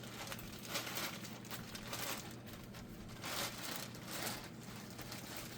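Irregular rustling and crinkling handling noise, with several short louder swells, as things are picked up and moved on a table.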